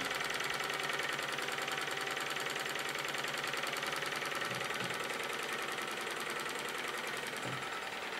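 Small DMF Stirling hot-air engine running at full speed, about 600 rpm: a rapid, even mechanical clatter from its crank and linkage.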